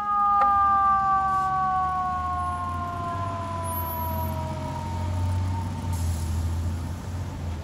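Fire truck's Federal e-Q2B siren winding down, its pitch falling steadily until it fades out about five seconds in, over the low rumble of the ladder truck's diesel engine pulling away.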